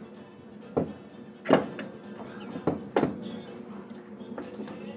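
Several sharp knocks and clicks of metal parts being handled and fitted, the loudest about a second and a half in, over a steady low hum.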